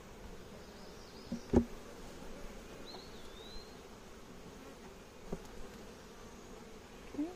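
Honeybees buzzing in a steady hum around an opened hive, the colony stirred up while a nuc is installed. A sharp knock comes about one and a half seconds in, with two fainter taps later.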